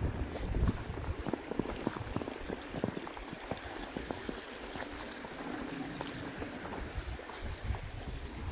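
Water trickling and flowing in a stream, with wind rumble on the microphone and scattered short clicks and crunches.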